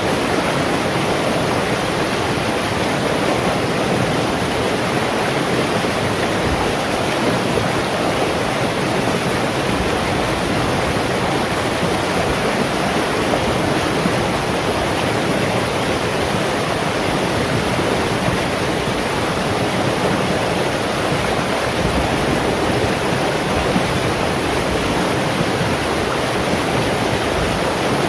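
Shallow rocky stream rushing and splashing over boulders and stones, a steady, even rush of water.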